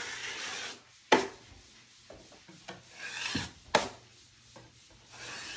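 A drywall taping knife scraping wet joint compound along new corner tape, striking off the excess mud, in several separate scrapes. Two sharp knocks, at about 1 s and near 4 s in.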